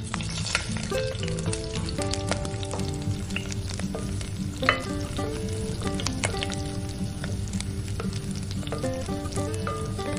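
Marinated chicken sizzling and frying in hot oil in a metal karahi while a wooden spoon scrapes and stirs it, with scattered clicks and one sharp knock about halfway through. Background music plays underneath.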